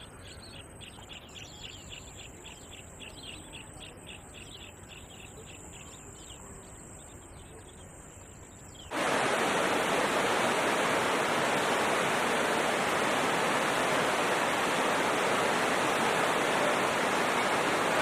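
A bird calls in a steady run of short repeated notes over a faint background. About nine seconds in, this cuts suddenly to the loud, steady rush of a fast-flowing river.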